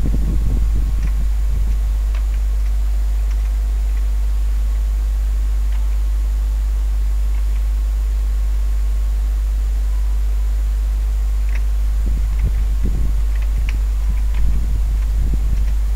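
A steady low hum, with low rumbling swells in the first couple of seconds and again near the end, and a few faint scattered clicks.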